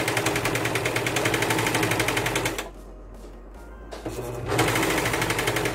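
Singer 14SH700 four-thread serger running fast with a rapid, even stitching rhythm while it sews and trims a fabric edge. It stops about two and a half seconds in, then starts again about a second and a half later and builds back up to speed.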